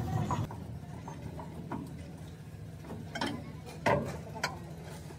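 A few scattered metallic knocks and clanks from a piston rod being pulled out of a truck tipper's hydraulic cylinder, the loudest about four seconds in, over a steady low hum.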